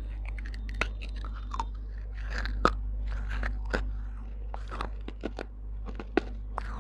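Baked clay pot being bitten and chewed close to a lapel microphone: a run of sharp, irregular crunches and cracks as the terracotta breaks between the teeth, with the loudest cracks about a third of the way in and near the end.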